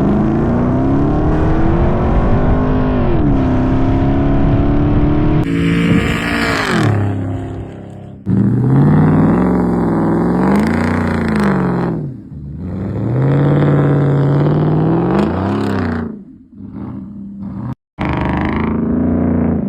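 Porsche Cayenne's engine revving up and down as the vehicle drives, in several short clips cut together, with a brief drop-out near the end.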